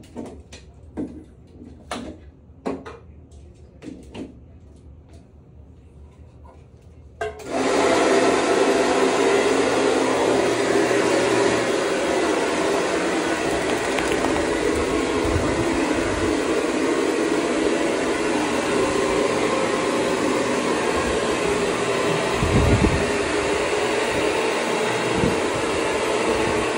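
A few light knocks and clicks, then shower water suddenly starts spraying about seven seconds in and runs on as a loud, steady rush.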